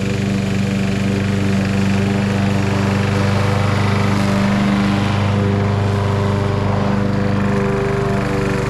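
Walk-behind petrol rotary lawn mower running steadily as it is pushed through grass, its engine note holding even.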